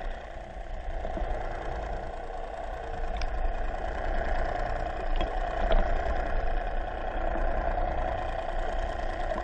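Steady muffled underwater hum and hiss picked up by a submerged camera, with a few faint clicks.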